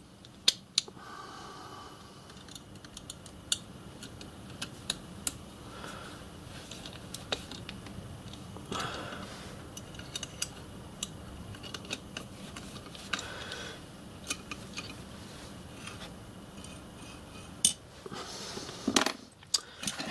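Small metal clicks and clinks of a nut-driver and spanner working on steel nuts and parts, tightening the nuts that hold a model locomotive's reversing stand together. A few brief scraping sounds come in between, one louder near the end.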